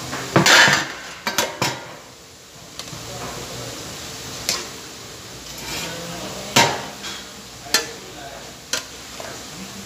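A metal spoon stirring noodles and vegetables in a large metal pot, knocking against the pot several times: a quick cluster of clanks in the first second or two, then single clanks every second or two, over a steady low hiss.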